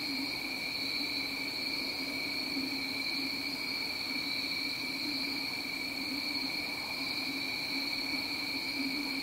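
Steady night chorus of insects, crickets or similar, a continuous high trill in two bands over a low steady drone.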